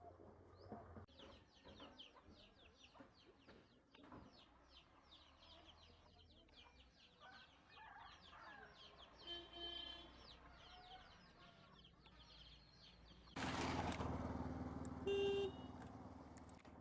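Outdoor ambience of rapid, repeated high chirping, with a short pitched clucking call about two-thirds of the way in. Near the end a vehicle goes by loudly and a horn gives a short beep.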